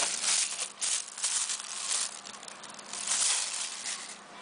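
Clear plastic wrap crinkling and rustling in uneven bursts as a tablet is handled and lifted out of its box tray. The noise dies away near the end.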